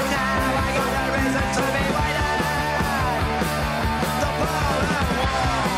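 Punk rock recording playing: full band with electric guitar and drums, with several notes sliding in pitch about three to five seconds in.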